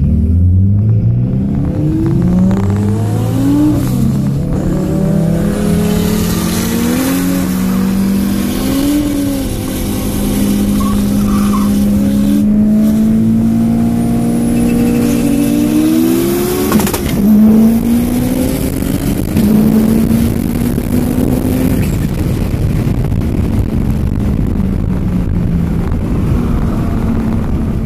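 Subaru WRX STI's turbocharged flat-four, heard from inside the cabin, pulling hard through the gears with its pitch climbing and dropping back at each upshift. It then runs steadier and sinks slowly in pitch as the car eases off, with a loud jolt partway through.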